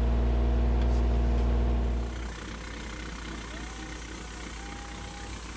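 Kubota mini excavator's diesel engine running steadily at close range. About two seconds in, the sound drops to a much quieter, more distant engine with a faint thin whine that rises and then holds.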